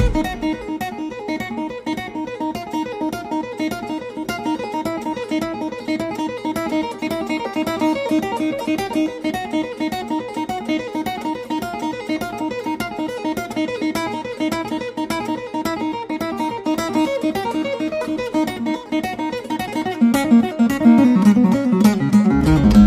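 Background music: acoustic guitar playing a quick, repeating picked and strummed pattern, with a fuller, louder low part coming in near the end.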